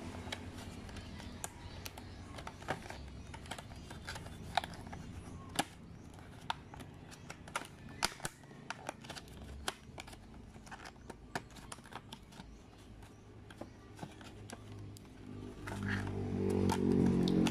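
Clear plastic blister packaging clicking and crackling in irregular sharp snaps as it is handled and pried open by hand. About a second and a half before the end, music comes in and is the loudest sound.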